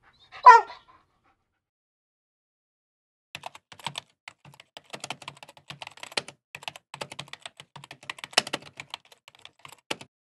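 A small terrier gives one short bark about half a second in. From about three seconds on, typing on a MacBook laptop keyboard: a quick, uneven run of soft key clicks.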